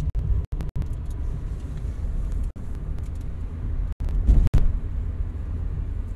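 Inside a moving car, a steady low rumble from the engine and tyres on the road swells briefly a little past halfway. The sound cuts out completely for a few split-second gaps.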